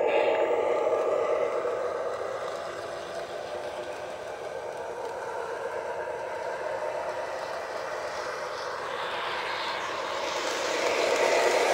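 Lionel LionChief ES44AC O-gauge model diesel locomotive running around the track: a steady hum with the rolling clatter of its wheels on the rails, fading as it moves away and getting louder again as it comes close near the end.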